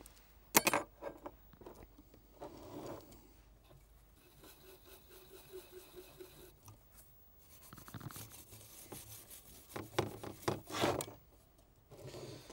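Tools and a bare circuit board being handled on a cutting mat: a sharp click about half a second in, then light rubbing and scraping that gets busier near the end.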